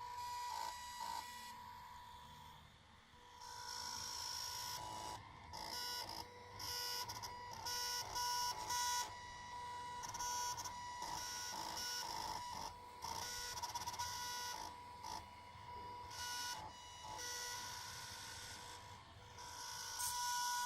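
Stepper motors salvaged from old DVD drives whining as a mini CNC drawing machine plots. A steady high whine runs under short stop-start moves that change every half second or so.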